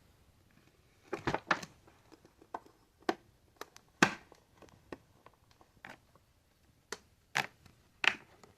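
Irregular clicks and light knocks of vacuum cleaner parts being handled and set down, about a dozen over the stretch, the sharpest about four seconds in.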